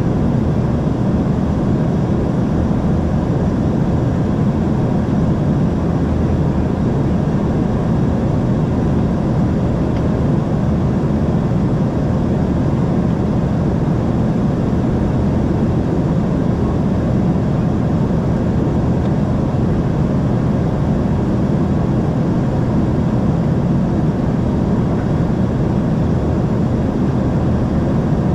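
Steady cabin noise inside an Embraer ERJ 145 regional jet climbing out after takeoff: the rush of air over the fuselage and the drone of its rear-mounted Rolls-Royce AE 3007 turbofans, deepest and strongest low down, with a few faint steady tones above.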